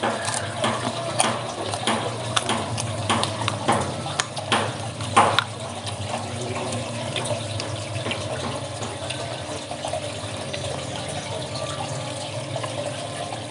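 Wet, smacking chewing and sucking of clams in sweet-and-sour sauce, with shell and finger clicks coming thick in the first half and the sharpest about five seconds in, then quieter chewing over a steady low hum.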